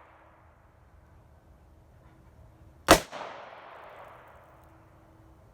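A single shot from a handgun firing .32 S&W Long ammunition, about three seconds in, its echo dying away over about a second and a half.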